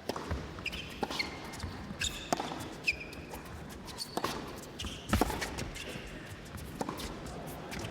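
Scattered sharp knocks of a tennis ball being struck and bounced on a hard court, the loudest about five seconds in, with a few short, high shoe squeaks in the first three seconds.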